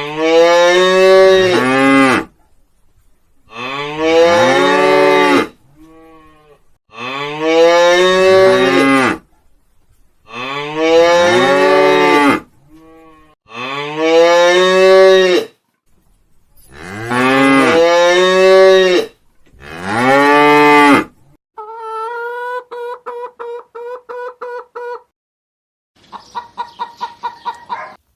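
Cattle mooing: about seven long, loud, drawn-out moos with short pauses between. Near the end comes a different, quieter call that stutters in fast pulses at a steady pitch.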